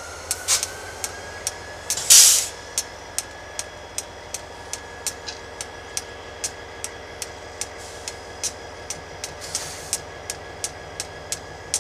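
Even ticking, about two and a half clicks a second, over a faint steady whine, with a loud burst of hiss about two seconds in and shorter hisses near the start and about ten seconds in.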